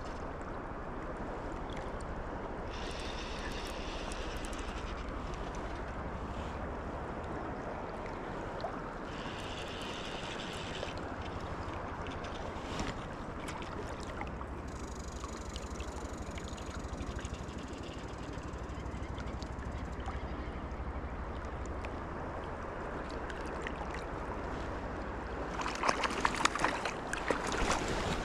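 Steady rushing of river water. A few faint higher-pitched patches come through it, and in the last two seconds there is a burst of louder, irregular splashing and clattering.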